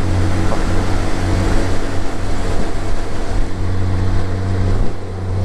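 2016 Honda Gold Wing's flat-six engine running at steady road speed, under a steady rush of wind and road noise. The engine note steps down slightly near the end.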